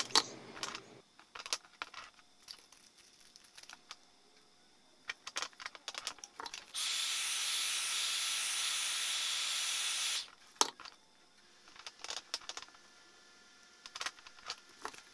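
Heat gun blowing a steady airy hiss while it shrinks heat-shrink tubing over a pair of wires. It cuts off just after the start, runs again for about three and a half seconds in the middle, and comes back on at the very end. Between the bursts there are small clicks and taps as the wire is handled.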